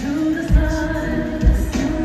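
Live concert music: a woman singing into a microphone over a band, amplified through the arena's sound system, with held vocal notes and a deep bass thump roughly once a second.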